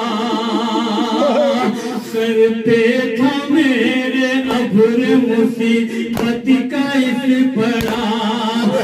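A man singing a noha, an Urdu mourning lament, unaccompanied and amplified through a handheld microphone in long held lines with a wavering pitch. A few sharp slaps come about six seconds in and again near the end.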